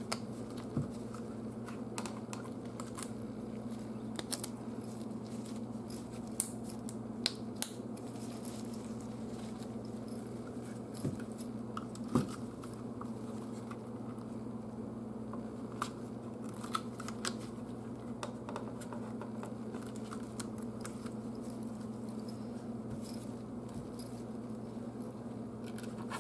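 Small screwdriver scraping and picking old butyl sealant out of a warm plastic turn-signal housing: scattered light clicks and scrapes over a steady low hum.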